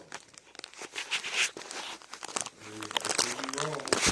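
Packaging crinkling and being torn open by hand, in quick irregular crackles.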